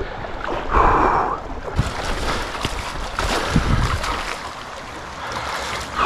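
River water sloshing and splashing, with wind rumbling on the microphone.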